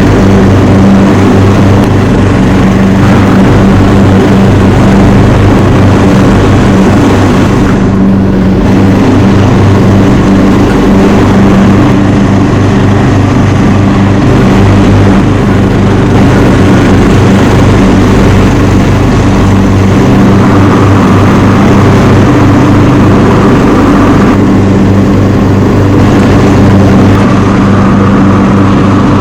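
Craftsman T210 riding lawn mower's 18-horsepower engine running steadily, loud and close to the microphone.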